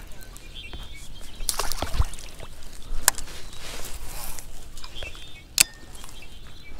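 Baitcasting rod and reel handled during a cast: a few sharp clicks and knocks, the loudest about five and a half seconds in, with faint bird chirps in the background.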